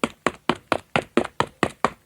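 Dragon Ball Z anime running-footsteps sound effect: quick, evenly spaced footfalls, about four to five a second.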